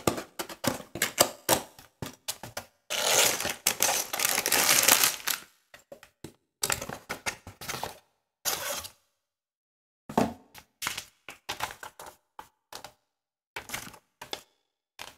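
A cardboard box of a plastic brick building set being opened by hand: a run of clicks and knocks as the flap is pried open, then a long rustle of plastic bags full of bricks and a paper instruction sheet being pulled out, with more clicks and rattles of the bagged bricks.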